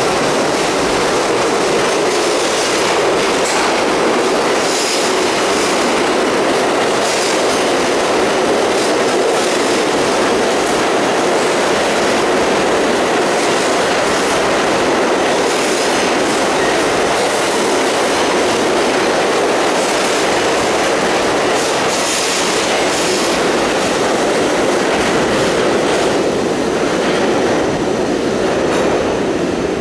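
New York City Subway 7 train pulling out of the station and running into the tunnel: a steady, loud rumble of the cars with wheels clattering over the rail joints.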